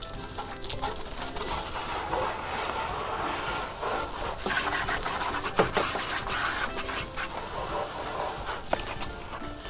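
Water from a garden hose spraying onto a pedal go-kart and the wet paving around it, rinsing off soap foam, with a few sharp clicks.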